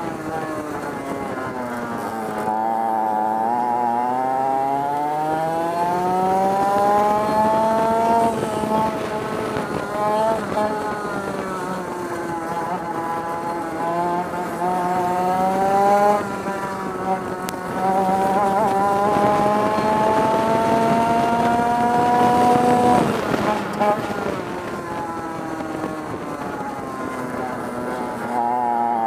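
Historic 100cc two-stroke kart engine at race pace, heard from onboard. Its revs climb along each straight and fall away four times as the kart slows for corners.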